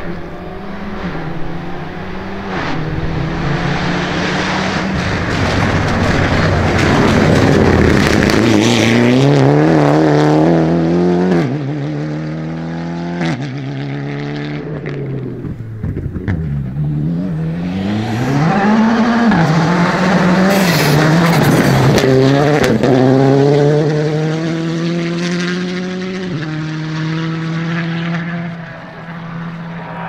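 Rally cars at full throttle, one after another: engines revving hard and changing up through the gears as they pass, with a few sharp pops.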